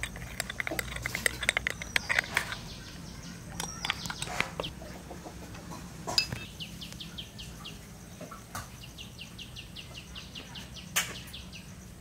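A steel spoon clinking quickly against a ceramic mug while honey is stirred into bashak leaf juice, followed by a few single clicks. About six seconds in, a bird calls in a fast, even run of short high notes lasting several seconds.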